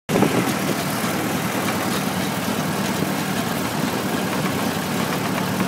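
Tractor engine running steadily, heard from the driver's seat, with an even low drone.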